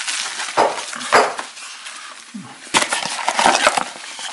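A small cardboard box being opened by hand, with flaps pulled and scraping and a plastic bag of tools rustling, in a run of irregular tearing, scraping and clicking noises.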